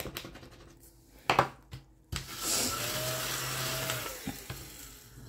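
Small battery desk vacuum running for about two seconds, its whine rising and then falling, as it is passed over a scratch-off page to pick up the shavings. Before it come light scratching and one sharp knock.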